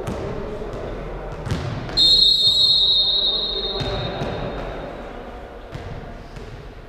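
A couple of ball hits echoing in a sports hall, then a long, high referee's whistle blast about two seconds in, the loudest sound, trailing off over the next two seconds. Players' voices are heard underneath.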